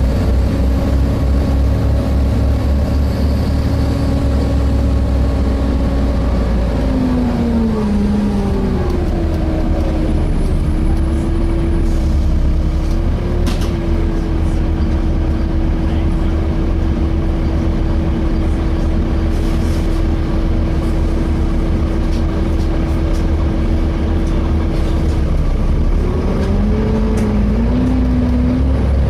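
Inside a Volvo B7TL double-decker bus: steady engine rumble with a whine from the cooling fan. The whine drops in pitch about seven seconds in, holds level for most of the stretch, then climbs again near the end.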